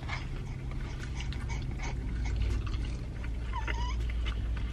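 Small chewing and food-handling clicks over a steady low hum, with a brief whimpering coo from an infant about three and a half seconds in.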